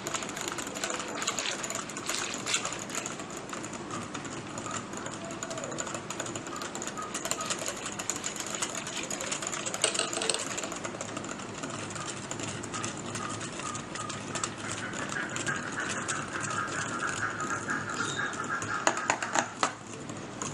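Yogurt and mint-juice lassi being beaten by hand in a jug: a fast, continuous rattling clatter of the mixing tool against the vessel.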